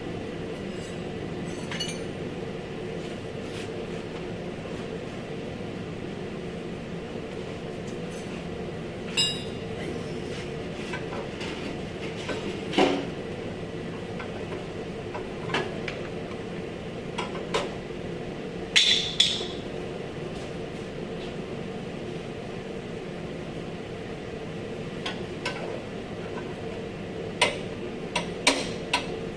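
Scattered metallic clinks and taps of hand tools on car body parts, then a quick run of hammer-like taps near the end, over a steady background hum.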